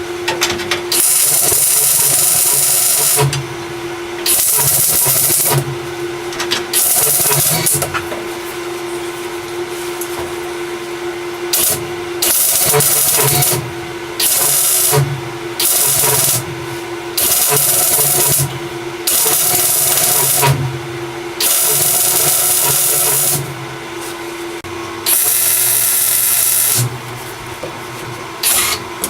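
Welder laying a series of tack welds into sheet-metal structure: a dozen or so bursts of crackling hiss, each half a second to two seconds long with short pauses between. A steady hum runs underneath.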